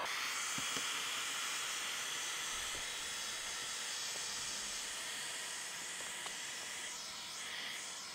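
Handheld electric heat gun running with a steady, airy hiss, blowing hot air along vinyl wrap film on a truck's window trim to shrink it and set it tight.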